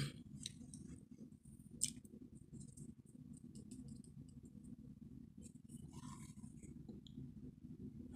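Faint clicks of a small shot glass being handled and tipped to the mouth to take cornstarch, one sharper click about two seconds in, over a low steady hum.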